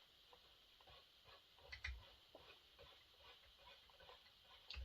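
Faint, scattered clicks and light taps, loudest about two seconds in and again near the end: chainsaw parts being handled and fitted on a workbench.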